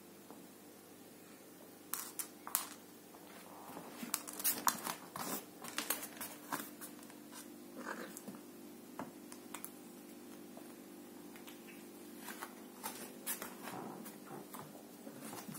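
Irregular scuffles, patters and sharp clicks of a hairless cat pouncing and scrambling on a carpet after a ribbon toy, busiest in two spells, over a steady low hum.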